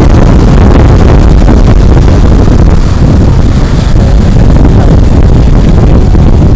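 Wind buffeting the camera's microphone, a loud, steady low rumble.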